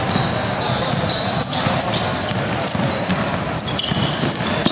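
Basketball dribbled on a gym court, the bounces echoing over a steady hubbub of voices in a large hall.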